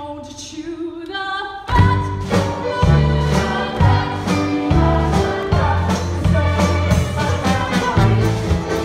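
Live pit orchestra playing an up-tempo dance number for a stage musical, with a chorus singing. It opens on a rising held note, then a little under two seconds in the full band comes in with a steady beat and cymbal hits.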